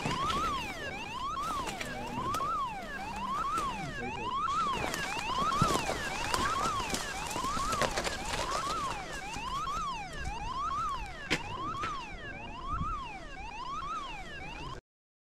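Electronic alarm siren wailing, its pitch rising and falling about once a second without a break, over scattered knocks and the rustle of brush being pushed through. It cuts off suddenly near the end.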